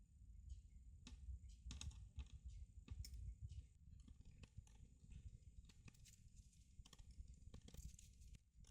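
Faint, irregular small clicks and taps over a low handling rumble: plastic laptop parts and small tools being handled during disassembly.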